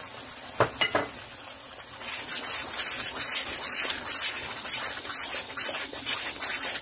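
Masala sizzling and crackling in hot oil as yogurt is stirred into it with a wooden spoon, with two light knocks a little under a second in. The sizzle grows louder from about two seconds in as the yogurt is worked through.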